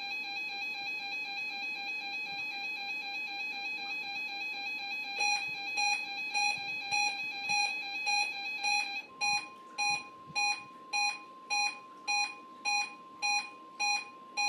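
Weather radio alarms going off: a steady electronic alarm tone, joined about five seconds in by a beep repeating about twice a second. Near nine seconds the first tone stops and a higher, purer steady tone takes over while the beeping goes on.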